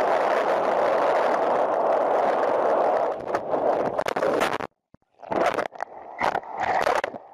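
Steady rush of wind and water on the microphone of a camera riding low on a moving boat. From about three seconds in come a string of sharp splashes and knocks as water breaks over the camera. The sound cuts out for half a second, then the splashing resumes.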